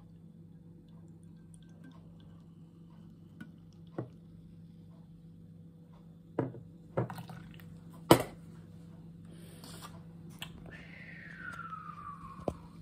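Beer poured from a can into a pint glass: a faint pour and fizz, with several clinks and knocks of can and glass, the sharpest about eight seconds in. A tone falls in pitch near the end.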